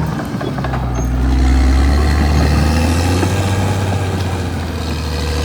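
Caterpillar D6R XL bulldozer's diesel engine running under load, a steady low drone that grows louder a little under a second in.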